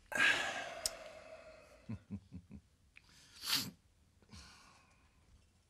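A man blowing out a loud breath through pursed lips, then a second short, sharp puff of breath about three and a half seconds later, with a few soft knocks in between.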